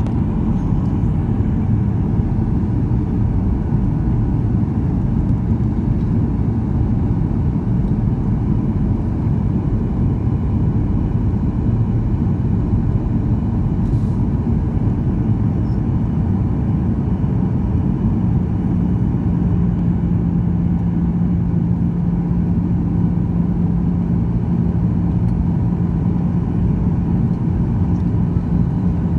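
Steady rumble of cabin noise inside a Boeing 737-900 on descent, from its CFM56-7B engines and the airflow past the fuselage, heard by a window over the wing. A steady low hum joins the rumble about two-thirds of the way through.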